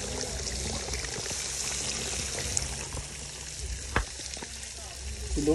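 Food sizzling in a large cooking pot over a fire, a steady hiss, with one sharp click about four seconds in.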